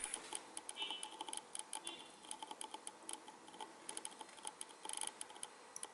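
Faint, irregular small metallic clicks with brief light scraping: a watch crown being fitted to a new crown stem and the stem pushed into an NH35 automatic movement.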